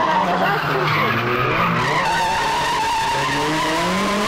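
Nissan Silvia S13 drifting: its tyres squeal in one long steady screech while the engine revs rise and fall, climbing near the end.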